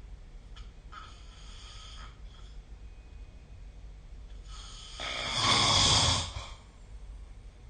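A sleeping person snoring: a faint breath about a second in, then one loud, buzzing snore a few seconds later that lasts about a second and a half.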